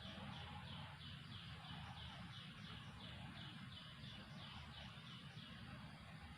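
Faint high chirping from a small animal: a short falling chirp repeated steadily about twice a second, over a low background rumble.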